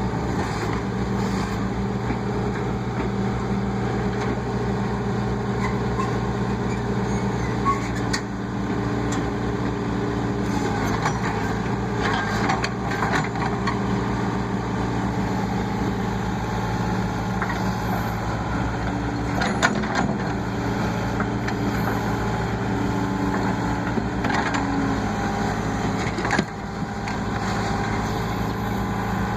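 Case 580E backhoe's diesel engine running steadily under digging load, with a few sharp knocks and scrapes from the bucket working the trench.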